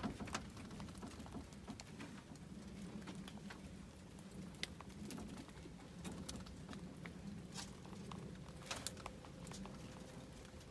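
Faint, scattered clicks and taps of young rabbits' paws moving on a wire-mesh cage floor, over a faint low steady hum.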